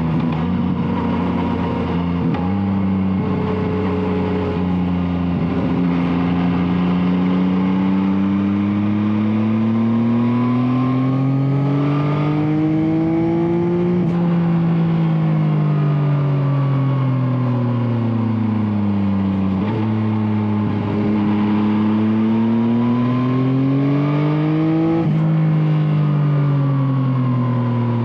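Yamaha Tracer 9's 890 cc three-cylinder engine running through an Akrapovic exhaust under way, its pitch climbing slowly as it pulls, easing off, then climbing again. Near the end the pitch drops suddenly.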